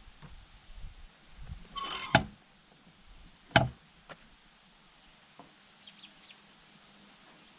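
A short rattle ending in a sharp knock, then a louder single knock about a second and a half later and a small click, from hand work at a wooden chicken-run door and its iron hardware. Faint bird chirps follow.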